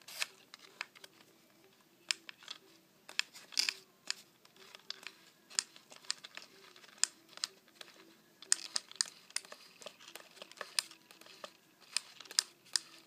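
Irregular light clicks and crinkly handling noise from winding a mousetrap car by hand, its brass lever arm pulled back so the string winds onto the axle.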